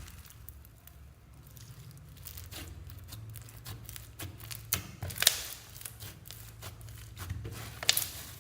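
Slime being stretched and squeezed by hand: sticky crackling and clicking, with two louder pops, one about five seconds in and one near the end, over a low steady hum.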